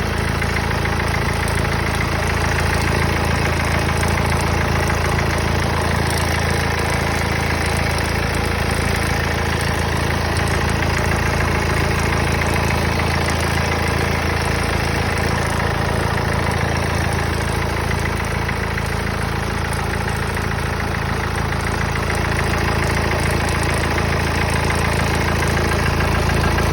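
Mercedes-Benz OM651 four-cylinder diesel engine idling steadily, with a noise that the owner cannot identify and is asking about.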